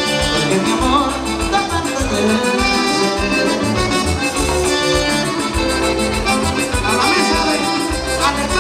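Accordion-led band playing an instrumental passage over a steady, pulsing bass beat.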